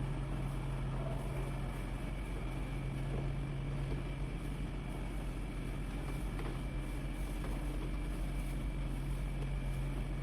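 A machine running steadily with a constant low hum and a faint high tone, unchanging throughout.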